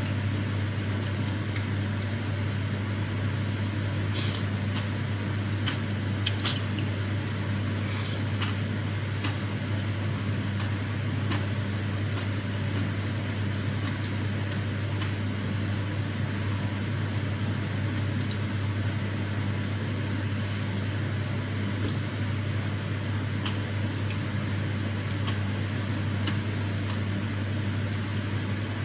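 A steady low hum with constant hiss, with scattered short clicks and smacks of a person eating soupy seblak with enoki mushrooms using a wooden utensil.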